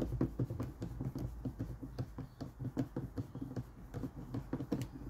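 Screwdriver turning a screw into a chainsaw's plastic air filter housing: a run of small, irregular clicks and scrapes, a few a second, over a faint low hum.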